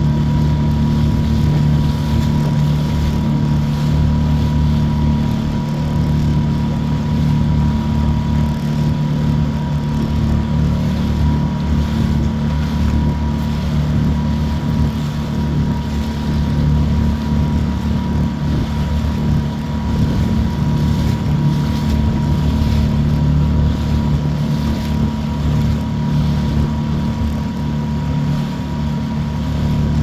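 Motor of a Pelican Bass Raider 10E fishing boat running steadily under way, a low drone with a thin high whine over it. Water rushes past the hull and wind buffets the microphone.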